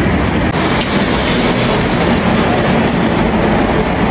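Loud, steady mechanical noise with no clear rhythm or single stroke.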